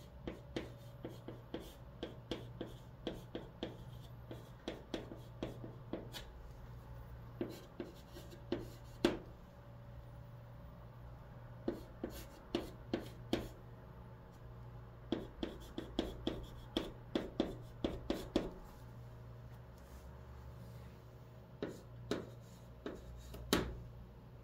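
White chalk in a chalk holder writing on a green chalkboard: runs of quick taps and short scratching strokes, one run per character or word, with brief pauses between.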